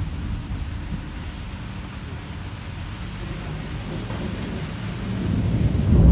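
Thunder rumbling over steady rain, the rumble swelling louder near the end.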